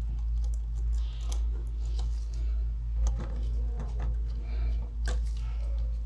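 Small clicks and scrapes of a screwdriver and wire on the screw terminals of a push-button station as a control wire is fitted, with a sharper click about three seconds in and again about five seconds in. A steady low hum runs underneath.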